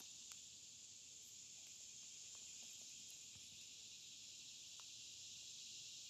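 Near silence: a faint, steady high hiss, with a few faint ticks.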